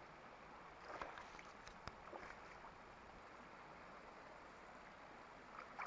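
Near silence: faint outdoor ambience, with a couple of soft clicks about one and two seconds in.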